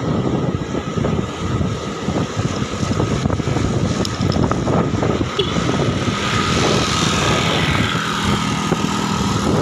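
Motorcycle engine running as the bike rides along a road, with wind noise on the microphone.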